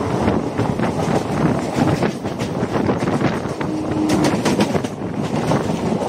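Train running along the track, heard from inside a carriage at the window: a steady rumble with a dense rattle and clicking of wheels on rails. A brief low steady tone sounds about four seconds in.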